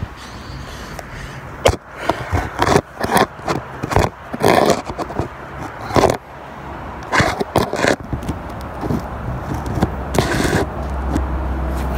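Handling noise from a phone being moved and set down on the ground: irregular scraping and rubbing on the microphone with a few sharp knocks, then a steadier low rumble near the end.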